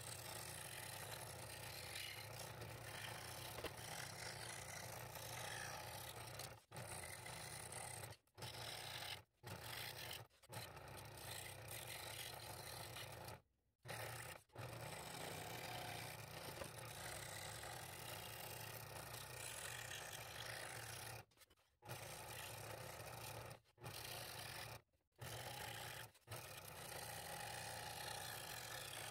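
Scroll saw running and cutting through thin wood: a steady buzz and rasp from the reciprocating blade, cut off briefly several times.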